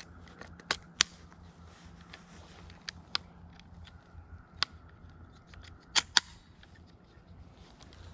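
About seven sharp clicks and taps, scattered and uneven, the loudest a quick pair about six seconds in, over a faint steady low hum.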